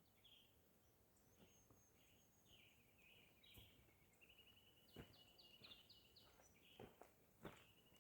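Faint songbird singing: scattered chirps, then in the second half a phrase of quick repeated notes flicking between two pitches. A few soft knocks come in the last few seconds.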